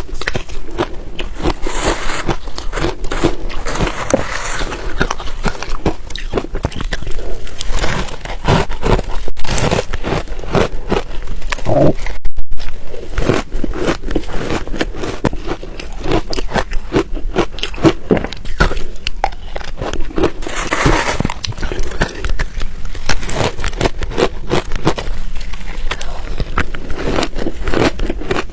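Close-miked crunching and chewing of refrozen ice, a dense run of sharp cracks and crackles as the ice is bitten and ground between the teeth, with a few brief scraping, crushing spells and a short pause about twelve seconds in.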